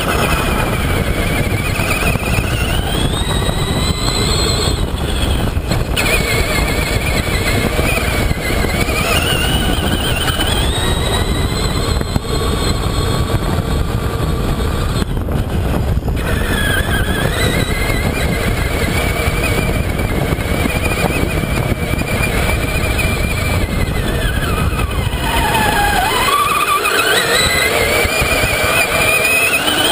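Traxxas Summit RC truck's electric motor and drivetrain whining as it is driven across sand, the pitch rising and falling as the throttle changes, over a steady low rush. Near the end the whine dips sharply and climbs again while the low rush briefly drops away.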